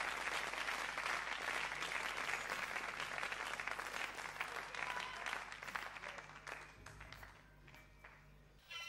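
Live concert audience applauding, the clapping thinning out over the last few seconds to a few scattered claps and a lull. The band's next song comes in right at the end with sustained electronic-sounding tones.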